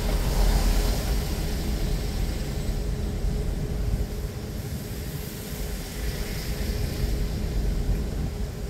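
Car driving on city streets: a steady low rumble of road and engine noise, a little quieter around the middle.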